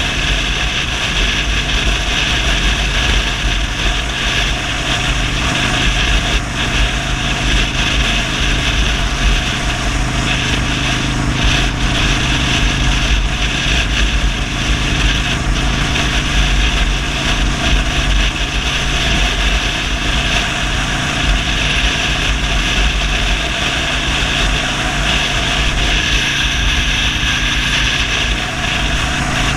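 Cruiser motorcycle engine running steadily at highway cruising speed, with heavy wind rush and buffeting over the handlebar-mounted microphone.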